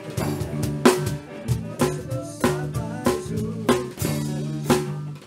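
Live rock band playing an instrumental passage: a drum kit keeps a steady beat of snare and bass-drum hits over held electric bass notes and a Fender Stratocaster electric guitar.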